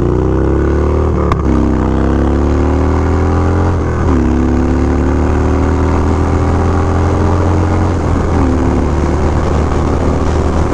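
2015 Harley-Davidson Dyna Low Rider's air-cooled Twin Cam 103 V-twin, fitted with a Dynojet Power Commander fuel tuner, accelerating hard at highway speed. Its pitch climbs, drops at upshifts about a second in, about four seconds in and about eight seconds in, then holds steadier near the end.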